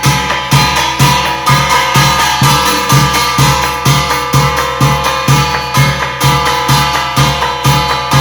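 Korean shamanic ritual (gut) music: a drum struck in a steady beat of about two strokes a second, with held ringing tones over it.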